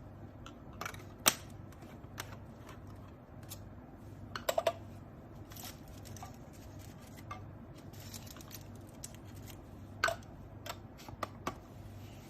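Small plastic herb grinder being handled and worked, giving scattered sharp clicks and taps: one strong click about a second in, a quick run of three near the middle, and a few more near the end, over a faint low hum.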